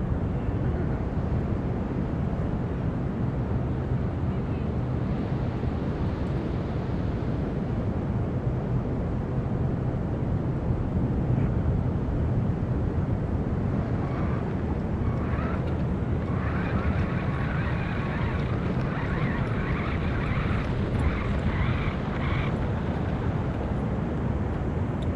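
Steady rumble of sea breeze on the microphone over breaking surf on a beach.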